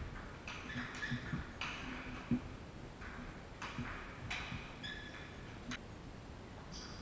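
Table tennis rally: the ball clicking off the bats and the table in an irregular rhythm, with the sharpest hit about two and a half seconds in.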